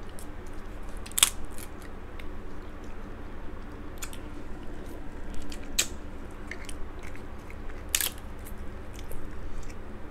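Cooked crab legs being cracked and pulled apart by hand, with four sharp shell cracks a couple of seconds apart. Between the cracks come small shell crackles and close-up chewing.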